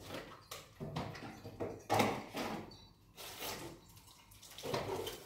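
Household cleaning noises: a run of short, irregular noisy sounds, the loudest about two seconds in.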